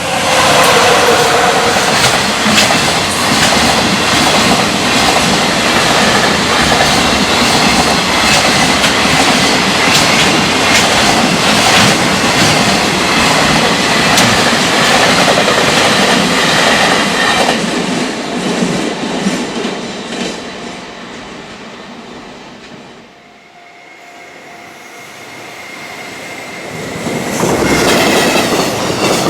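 Electric freight train passing at speed close by, its wagon wheels clattering in a steady run of clacks over a rail joint. The clatter fades away after about 17 seconds, and near the end a second train comes up loud again.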